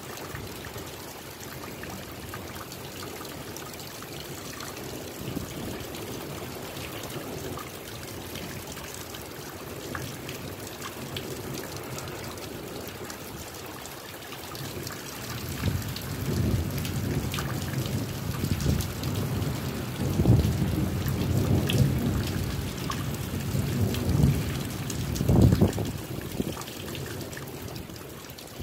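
Steady rain falling with scattered drip ticks during a thunderstorm. About halfway through, a long roll of thunder rumbles for some ten seconds, swelling twice before it fades.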